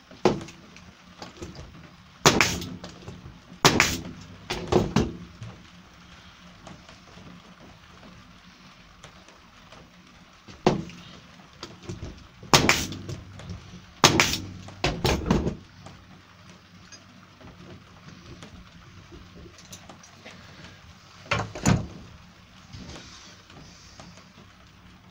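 Staple gun firing staples through a plywood top into wooden ribs: about ten sharp shots in irregular clusters, with quiet gaps between.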